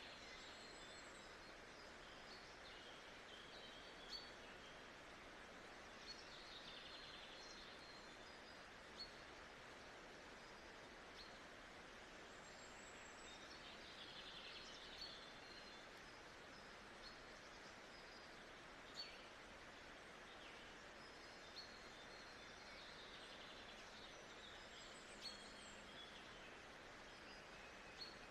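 Faint nature-sounds ambience: a steady soft hiss with birds chirping here and there, and brief sharp chirps or clicks every few seconds.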